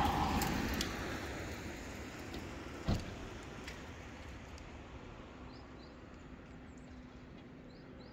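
A van drives past on the road, its engine and tyre noise fading away over the first few seconds. A single sharp knock comes about three seconds in.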